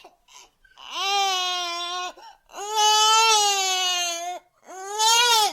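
Baby crying in three long wails, each held at a fairly steady high pitch, with short catches of breath between them.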